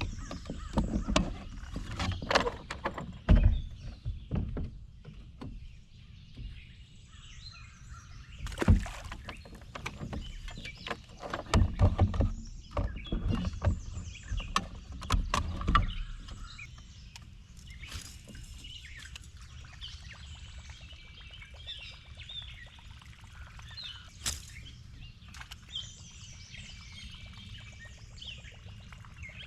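Irregular knocks and thumps of handling on a fishing boat through the first half, then birds chirping over a steady outdoor background.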